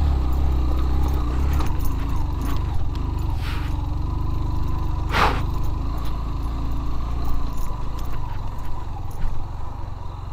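Motorcycle engine running at low speed on a rough stony track, heavier for the first second and a half, with light clicks and rattles throughout. The engine has heated up on the climb.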